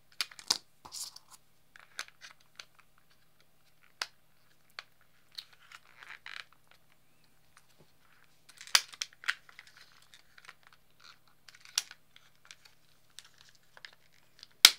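Laser-cut acrylic case panels being handled and pressed into their slots around a circuit board: scattered sharp plastic clicks and short scrapes, the loudest click near the end.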